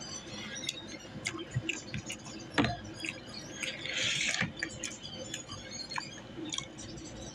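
Faint eating and drinking sounds: scattered small clicks and mouth smacks, with a short hiss about four seconds in.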